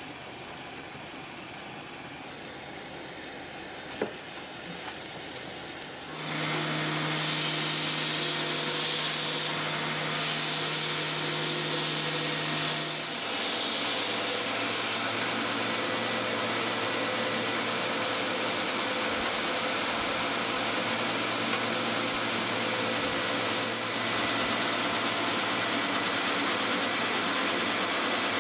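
A small gas torch hisses steadily as it heats a knife tang. About six seconds in, a belt grinder takes over, running loud and steady with a low hum that drops slightly in pitch a few seconds later, as a wooden knife handle is worked against it.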